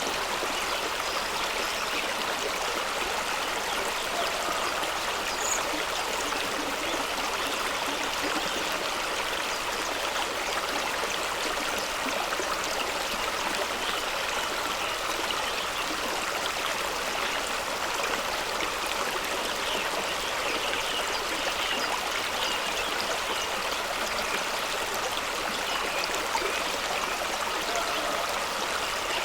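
Fast-running stream splashing over rocks: a steady, even rush of water with a little trickling and gurgling.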